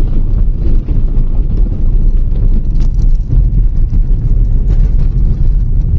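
A vehicle driving, a loud steady low rumble with no clear engine note.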